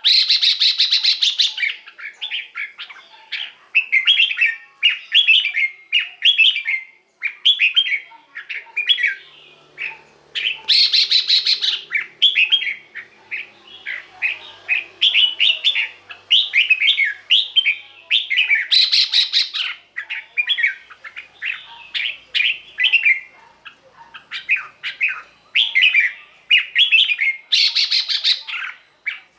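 Red-whiskered bulbul singing: a steady run of short, clear warbled phrases one after another. Four times, about every eight seconds, it breaks into a louder, harsh rasping stretch about a second long.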